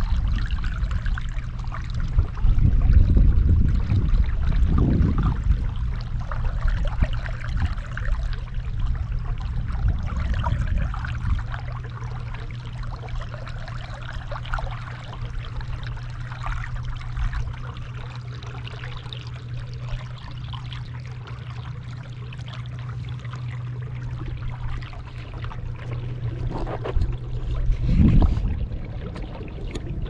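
Water trickling and lapping against the hull of a small boat moving slowly along a river, over a steady low hum. Gusts of wind rumble on the microphone a few seconds in and again near the end.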